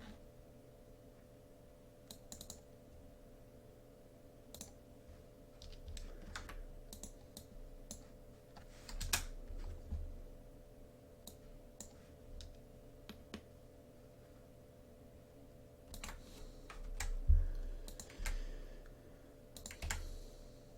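Computer keyboard and clicks being worked in short, irregular bursts of keystrokes, over a faint steady hum.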